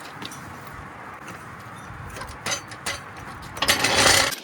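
Lug nuts being tightened with a click-type torque wrench: a few short clicks, then a louder rasping burst near the end.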